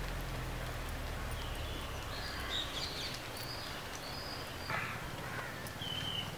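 Birds calling, with short high chirps through the middle and a harsher, caw-like call about three-quarters of the way in, over a low steady hum.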